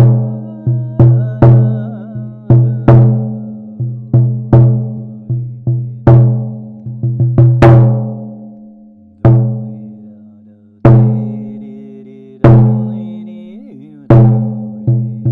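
A handmade stick-played drum struck again and again, each stroke ringing out on the same low pitch and dying away. The strokes come in a quick, uneven rhythm at first, then slow to single hits a second or two apart in the second half.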